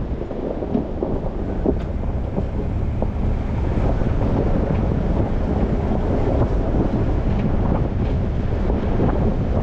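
Ford Bronco driving, its road and engine rumble heavily buffeted by wind on a GoPro microphone, with scattered small knocks. It gets louder over the first few seconds, then holds steady.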